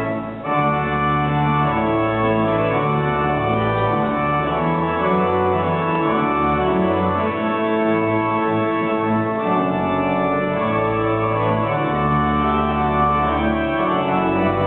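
Pipe organ playing a processional of held chords over a moving bass line, accompanying the academic procession onto the stage.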